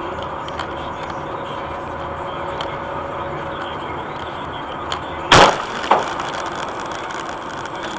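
Steady road noise inside a moving car, then about five seconds in a loud sharp crash as an object hits the windshield and shatters it, followed a moment later by a second, smaller crack.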